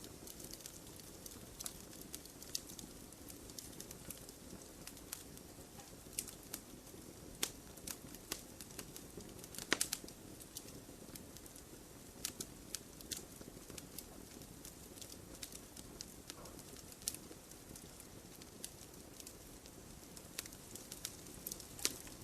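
Campfire crackling: irregular sharp pops and snaps over a low, steady rush of burning wood, with a louder pop about ten seconds in and another near the end.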